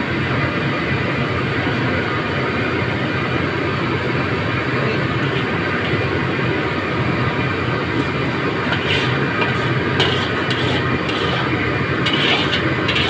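Steady loud rushing drone of background machine noise. In the last few seconds come a few light metallic clinks from a steel ladle against the food container.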